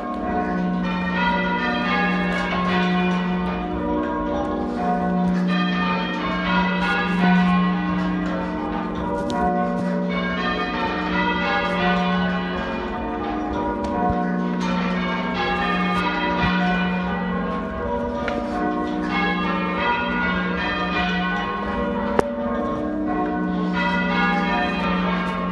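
A ring of church bells being rung half-muffled in change ringing: a steady, continuous run of bell strokes, with a leather muffle on one side of each clapper so that one stroke of each bell sounds open and the other muffled.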